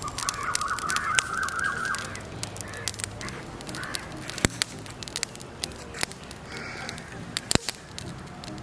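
A crow cawing, one long harsh call at the start and several shorter calls after, over the sharp pops and crackle of a freshly lit charcoal fire, two of the pops louder than the rest.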